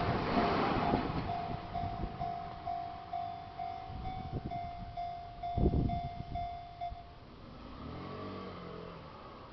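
A level crossing's warning bell ringing at about two strokes a second while the passing Kintetsu 6020 series train's running noise fades; the bell stops about seven seconds in. A thump sounds about five and a half seconds in, and near the end a car engine pulls away.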